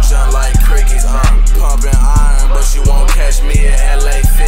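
Hip hop beat: a deep sustained bass and steady drum hits, with a voice sliding in pitch over them.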